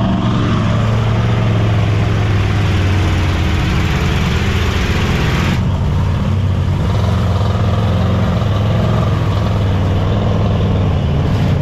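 Loud engines of lifted off-road mud trucks running steadily, with a hiss above them that drops away about halfway through.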